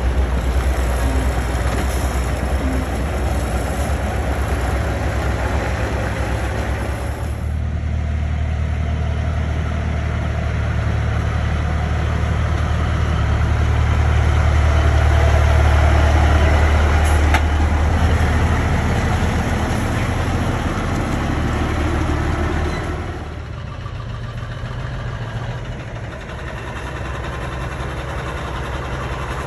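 Heavy truck engine running, a steady low drone that grows louder to a peak about halfway through and drops away about two-thirds of the way in.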